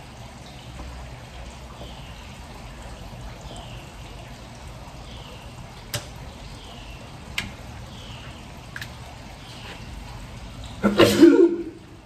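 A few light clicks as doorbell mounting parts are handled against the door frame, then near the end a loud cough-like burst from a person, lasting about a second.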